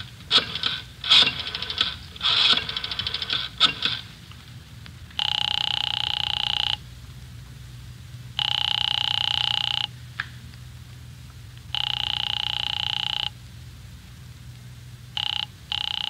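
Radio-drama telephone sound effects: a rotary dial clicking and whirring through the first four seconds, then a telephone bell ringing three times, each ring about a second and a half long. Near the end comes a short, broken ring, cut off as the call is answered.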